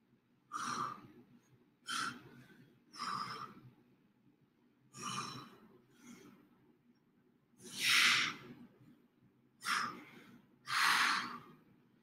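A person breathing hard with exertion during an exercise: about seven heavy breaths, one every second or two, with the loudest about two-thirds of the way in.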